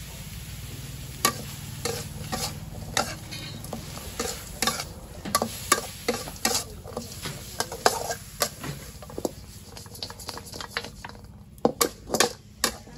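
Metal spatula scraping and clacking against a metal wok as a dry stir-fry of dove meat is turned over, with the food sizzling underneath. The clacks come irregularly, about one or two a second, and are loudest near the end.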